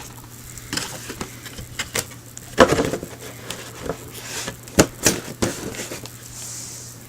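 Handling noise from model-kit boxes being picked up and moved: scattered knocks and taps, the loudest about two and a half seconds and five seconds in.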